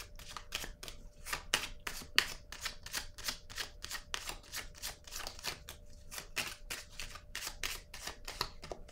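A deck of tarot cards being shuffled by hand: a quick, even run of soft card flicks and slaps, about four a second.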